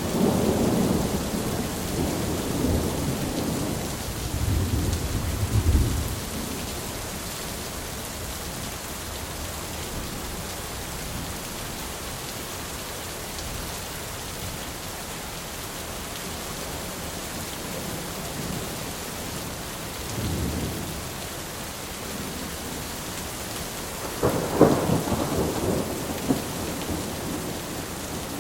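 Thunderstorm: steady heavy rain with rolling thunder, a long rumble over the first several seconds, a short one about two-thirds of the way through, and a sharper crack followed by rumbling near the end that is the loudest moment.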